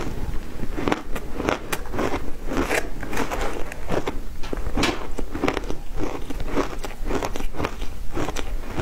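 Shaved ice crunching as it is chewed, a dense run of crisp crackles picked up close by a lapel microphone.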